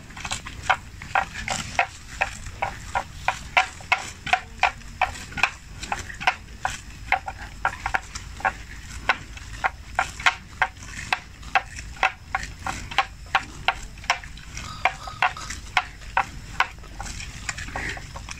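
Water buffalo grazing, tearing mouthfuls of grass in a quick run of crisp rips, about two to three a second, thinning out near the end.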